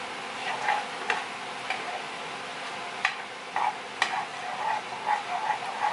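A utensil stirring macaroni in a skillet, scraping against the pan with irregular scrapes and a few sharp clicks, the clearest about a second, three seconds and four seconds in.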